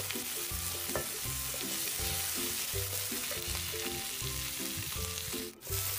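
Oil sizzling as chopped garlic, shallots and freshly added ground red chili are stir-fried in a wok, a wooden spatula stirring and scraping the pan, with soft background music underneath. The sound cuts out briefly near the end.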